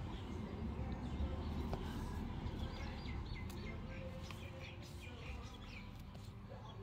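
Small birds chirping repeatedly, in short rapid calls that are busiest in the middle, over a steady low rumble.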